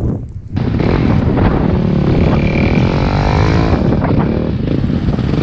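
450cc four-stroke dirt bike engine running close by, cutting in loudly about half a second in and revving up and down.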